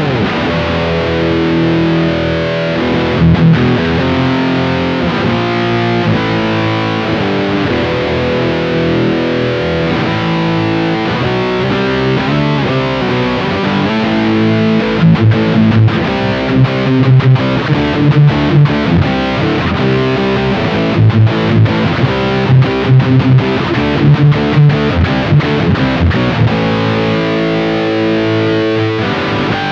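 Tokai ALS62 Gold Top Les Paul-style electric guitar, distorted, playing power chords on its humbucker pickup. The chords ring out at first; from about halfway they turn short and choppy with brief stops between them, then ring out again near the end.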